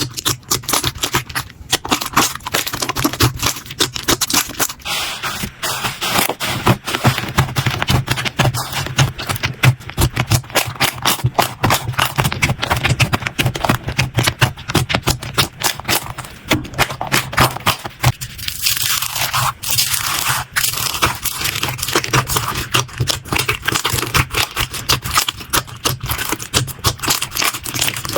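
Slime being squeezed, poked and stretched by hand, giving a dense, continuous stream of sticky crackling clicks and pops.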